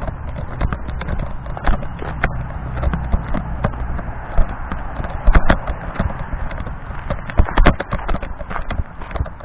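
Footsteps of a person walking along a path, a run of irregular knocks about two a second, over a steady low rumble.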